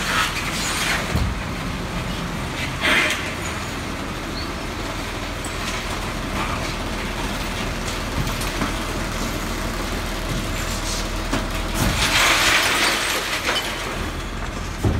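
Garbage truck engine running steadily. It is broken by several short noisy bursts, the longest about twelve seconds in and lasting over a second.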